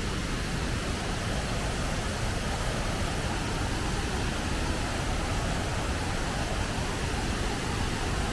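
Steady, even roar of a large waterfall's falling water.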